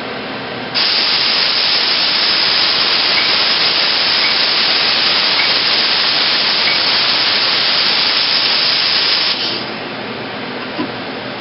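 A spray jet inside a Mazak Multiplex 6200Y CNC lathe hisses loudly and steadily. It starts suddenly about a second in and cuts off near the end, over the machine's quieter running hum.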